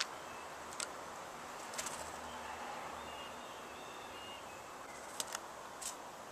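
Sharp, scattered taps and clicks of blue jays picking at and grabbing peanuts in the shell on a wooden deck rail, over a steady outdoor background hiss. Faint, thin bird chirps come in the middle.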